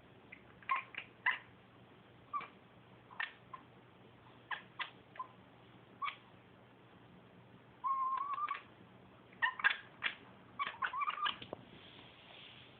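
A domestic cat chattering: short, sharp clicking chirps, irregularly spaced, with a longer wavering chirp about eight seconds in and a quick run of clicks near the end. This is the chatter a cat makes while watching prey it cannot reach.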